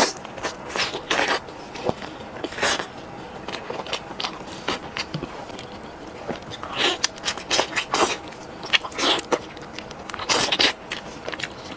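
Close-up biting and chewing of crispy chicken, with irregular crunches every second or so.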